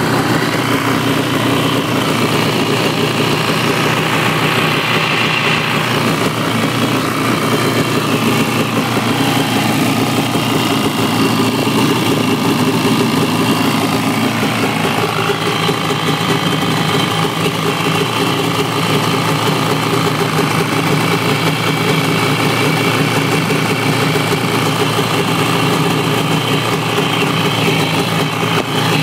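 Yamaha Wave Raider 700 jet ski's 700 cc two-stroke twin engine idling steadily, on a test run after new engine mounts were fitted.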